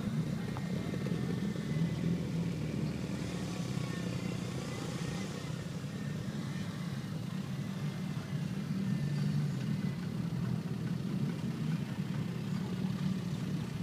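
Mitsubishi Lancer Evolution sedans' turbocharged four-cylinder engines running at low revs as the cars roll slowly past one after another, a steady low engine note without revving.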